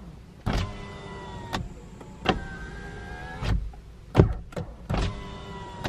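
Mitsubishi Xpander's electric window motor whining as the glass moves in several short runs, each started and stopped by a click of the door switch. The windows are running on retained power with the engine and electrics switched off.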